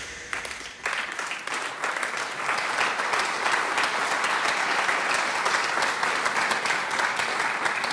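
Audience applauding, the clapping starting about a second in, holding steady, then thinning out near the end.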